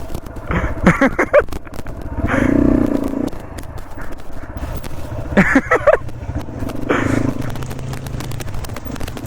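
A motorcycle engine running with a steady low drone under rough, gusty noise, with a few short bursts of voices over it.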